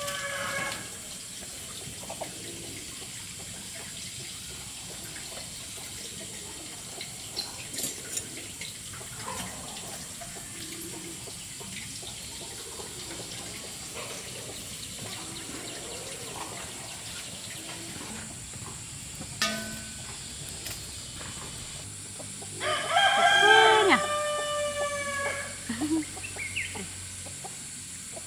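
A rooster crows: the end of one crow in the first second, and a full crow about three-quarters of the way through, over a low steady background with a few scattered small knocks.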